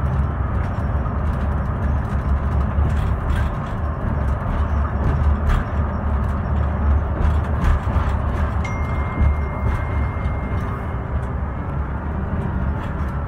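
Onboard sound of a Scania K320IB bus under way: a steady low rumble from its five-cylinder diesel engine and drivetrain, with occasional clicks and rattles of the cabin fittings. A faint thin tone is held for about two seconds midway.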